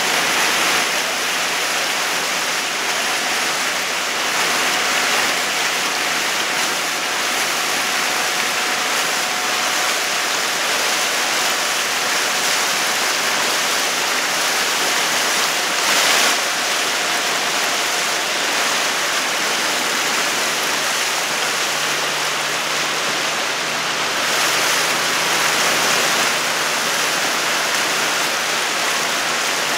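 Steady rushing hiss of water moving past the hull of a boat under way, with no speech.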